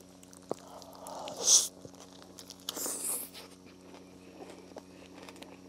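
A person biting into a shawarma wrap and chewing it with mouth closed, with a couple of short louder hissy moments about one and a half and three seconds in, over a faint steady hum.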